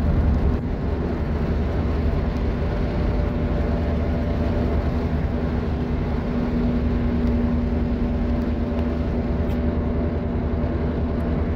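Road noise of a moving car heard from inside: a steady low rumble of tyres and engine with a constant engine hum.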